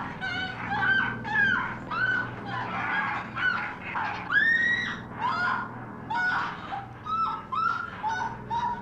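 Film soundtrack of repeated short, high-pitched cries, about two a second, each bending up and then down in pitch, over a faint low steady hum.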